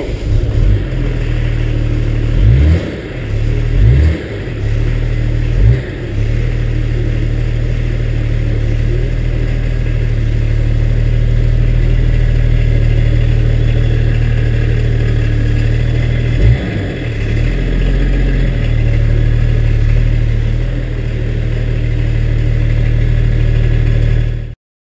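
BMW 325tds's 2.5-litre straight-six turbodiesel idling through a newly fitted rear silencer, heard from right beside the tailpipe. There are a few short blips of the throttle in the first six seconds and one more about sixteen seconds in.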